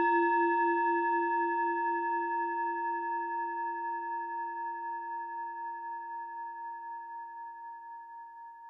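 A struck metal bell, like a singing bowl, ringing out after a single strike and slowly fading, with a gentle, even wobble in its tone.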